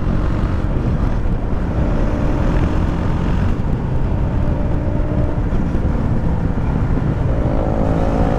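KTM Duke 390's single-cylinder engine running at road speed under a steady rush of wind on the microphone, picking up from about 65 to 78 km/h. The engine note rises slightly about two seconds in and again near the end.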